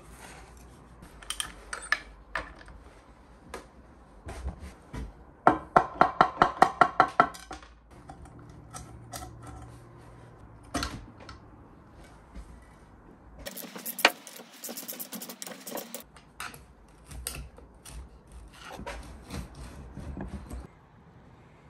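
Hand tools clicking and clanking against a motorcycle engine's alloy cases during dismantling, with a quick run of about ten sharp clicks from a socket ratchet a little over five seconds in.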